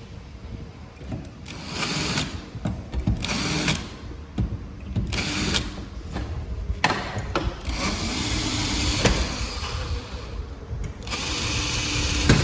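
Power drill run in about five short bursts, with a few sharp clicks between them, while locks are being fitted into aluminium doors.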